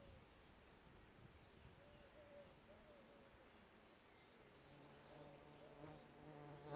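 A flying insect buzzing close by, faintly. Its pitch wavers up and down over the first few seconds, then it settles into a steadier, lower buzz over the last couple of seconds, with a few faint high bird chirps behind it.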